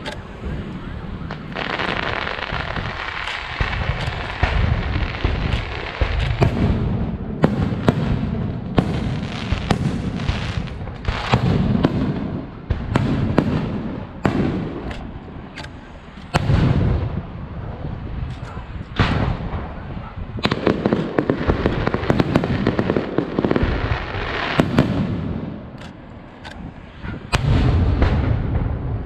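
Aerial fireworks display: shells bursting in quick succession, many sharp bangs and deep booms over a continuous rushing noise.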